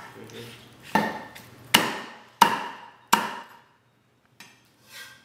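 Chinese cleaver chopping through roast chicken on the bone into a wooden chopping block: four heavy strikes about 0.7 s apart, then a couple of faint knocks near the end.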